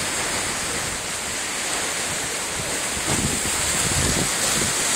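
Sea waves washing against a breakwater, with wind buffeting the microphone; a louder low rush of water comes about three seconds in.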